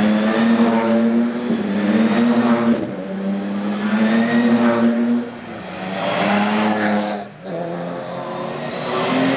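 Ginetta G50 GT race cars' 3.5-litre V6 engines as the cars drive past one after another down the pit lane at steady revs, the note swelling as each car passes and dipping briefly between cars.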